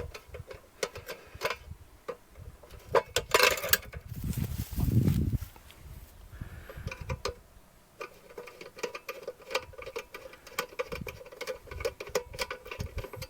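Screwdriver loosening the screws of a cable clamp on a metal electrical box: a run of small metallic clicks and scrapes, with a louder clatter and some handling noise about three to five seconds in.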